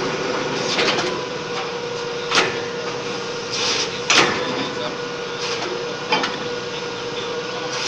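Borewell drilling rig running: a steady mechanical hum under a hissing noise, broken by several sharp metallic clanks and short bursts of hiss.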